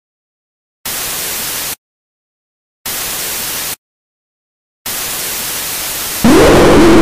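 Harsh TV static hiss in three bursts of about a second each, separated by silent gaps. About six seconds in it jumps to a much louder, distorted blast of static with a wavering, falling tone inside it.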